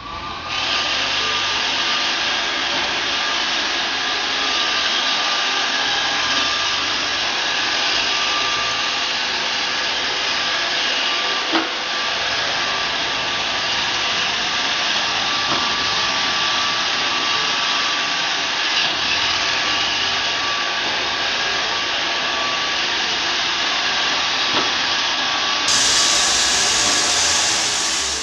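iRobot Roomba 780 robot vacuum running: a steady whirring hiss from its vacuum motor and brushes, with faint whining tones in it. There is a single light knock about halfway through, and it grows louder over the last couple of seconds.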